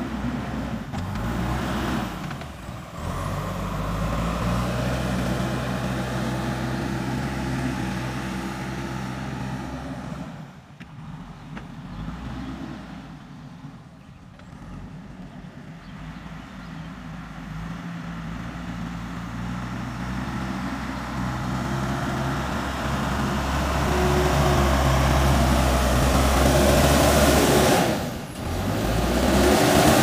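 JCB 3DX backhoe loader's diesel engine running under working load as the machine drives and pushes soil with its front bucket, the engine note stepping up and down as it works. It is fainter in the middle, with a few abrupt breaks, and loudest near the end as the machine comes close.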